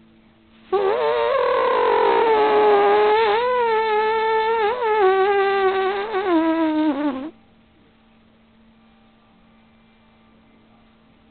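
A person's voice holding one long, high, wavering vocal tone for about six and a half seconds. It slides slowly down in pitch and cuts off suddenly; the rest is faint room hum.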